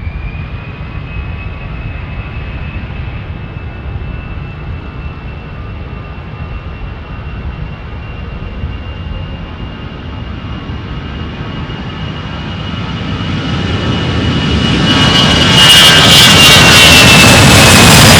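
Airbus A319's CFM56-5B turbofan engines at take-off power. A high fan whine settles to a steady pitch over a low rumble, then about twelve seconds in the sound builds quickly into a loud jet roar that holds to the end.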